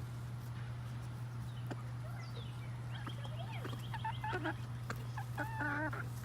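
Domestic hens clucking with short high calls, then a louder wavering squawk near the end. A steady low hum runs underneath.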